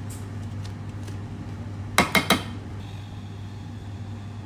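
Three quick clinks of kitchen utensils over a steady low hum.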